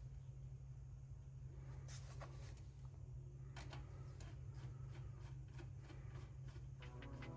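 Faint clicks and rubbing of a screwdriver and wire being fitted into a power supply's screw terminal, over a steady low hum. Background music comes in near the end.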